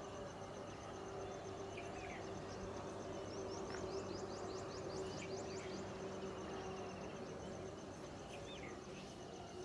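Morning outdoor ambience: an insect keeps up a steady, rapidly pulsing high trill while birds chirp here and there, with a quick flurry of chirps about four to five seconds in. A faint low steady hum lies underneath.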